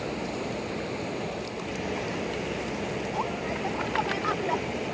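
Shallow river water running over a stony bed, a steady rushing, with faint voices briefly around three to four seconds in.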